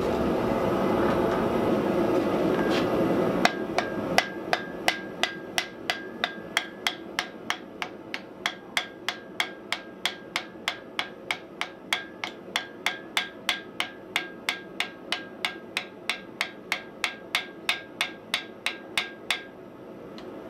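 A steady rushing noise for the first three seconds or so, then a hand hammer strikes a glowing block of wrought iron held on a steel anvil. The blows come in an even rhythm of about three a second, each a short clank with a faint ring, and stop about a second before the end.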